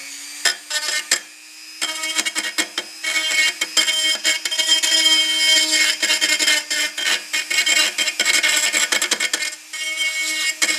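Dremel rotary tool running with a small grinding bit against a brazed aluminum patch, smoothing down the braze. It gives a steady high motor whine, with scratchy grinding noise from about two seconds in that breaks off briefly now and then as the bit lifts off the metal.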